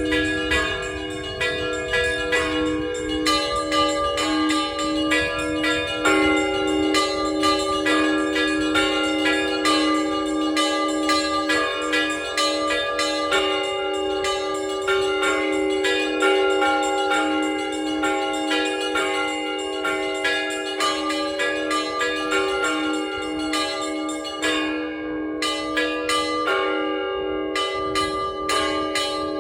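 Cathedral bells rung by a bell-ringer: many bells of different pitches struck in a fast, continuous pattern, with a lower bell repeating steadily beneath the rapid strikes of the smaller bells.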